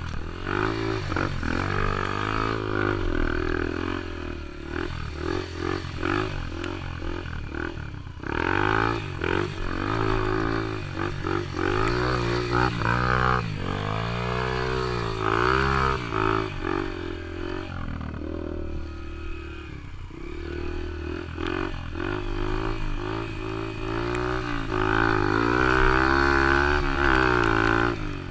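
Yamaha TT-R125 dirt bike's single-cylinder four-stroke engine being ridden, its pitch rising and falling again and again with throttle and gear changes, loudest near the end.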